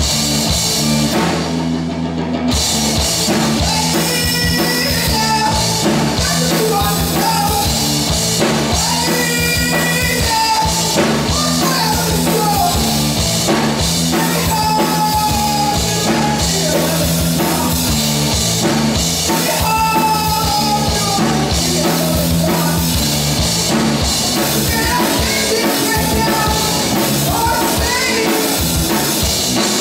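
A live rock band plays loudly: electric guitar, bass guitar and drum kit, with a wavering melody line above steady bass notes. The cymbals come in about two seconds in.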